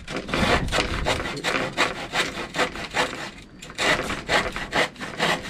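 Handsaw cutting across a thin wooden ceiling cladding board with rapid back-and-forth strokes.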